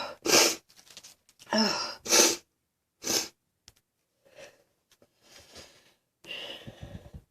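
A woman with a cold sniffling and breathing sharply between sneezes: three quick sharp sniffs in the first few seconds, a short breathy 'oh', then fainter breaths and a longer noisy breath near the end.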